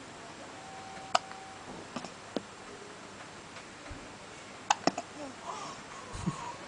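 A newborn baby hiccuping: short, sharp clicks a few seconds apart, one about a second in and a quick cluster near five seconds in.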